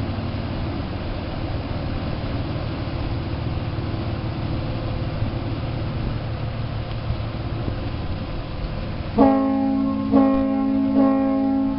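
Seastreak Commodore ferry's engines running steadily with churning propulsion wash as it pulls away, then its ship's horn sounds three short blasts in quick succession about nine seconds in, the loudest part.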